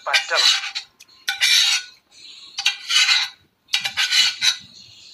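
A spoon stirring and scraping beef and masala around a pan in four strokes about a second apart, with the cooking liquid boiling in a faint steady hiss between strokes.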